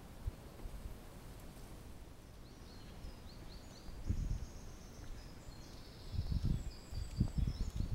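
Woodland songbirds singing high, short chirps and trills. Low irregular thuds come in about four seconds in and again, louder, near the end.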